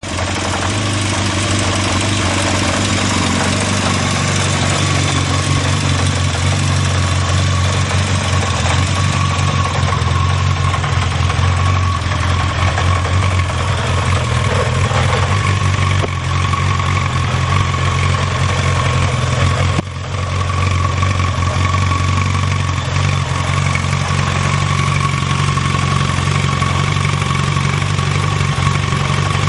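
Yamaha XJ600S Diversion's air-cooled inline-four engine idling steadily, with one brief dip about two-thirds of the way through.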